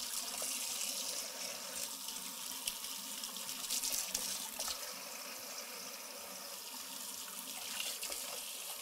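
Kitchen faucet running steadily into a stainless steel colander in the sink, with a few small splashes as hands work pieces in the water under the stream.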